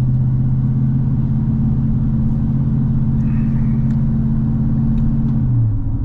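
Chevrolet Suburban driving at a steady speed, its engine and road drone heard from inside the cabin. Near the end the engine's hum drops in pitch.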